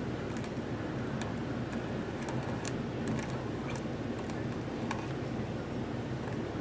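Faint, irregular ticks of a metal quill-pen nib touching and lifting off a glass sheet while drawing fine lines, over a steady low room hum.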